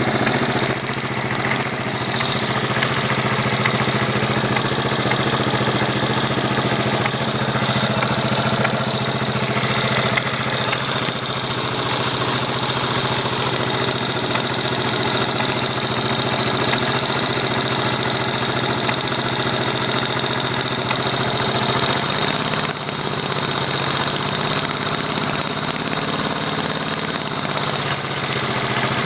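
1983 Yamaha XT550 single-cylinder four-stroke engine idling steadily with a knock that seems to come from the right-hand crankcase. The knock has grown worse over a few days and is only really noticeable at idle, unchanged by the clutch or gear.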